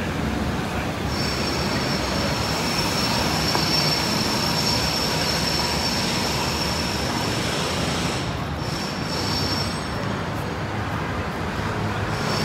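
Busy city street traffic: a steady rumble of passing cars, vans and buses, with a thin high whine over it that drops out briefly about eight seconds in.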